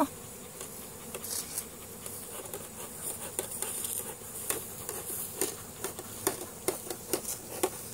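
Swarming honeybees humming, a faint steady buzz over the area, with scattered light clicks and taps through it.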